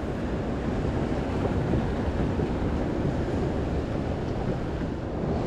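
Wind noise on the microphone over the steady wash of the sea, an even rushing without any distinct events.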